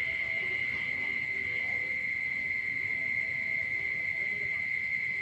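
A frog and insect chorus after rain: a steady, unbroken high-pitched drone, with faint short lower calls coming and going underneath.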